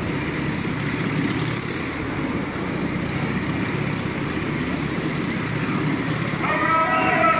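Motorcycle engine running steadily as the bike circles the vertical wooden wall of a Wall of Death drum. Near the end a pitched voice or tune rises over the engine.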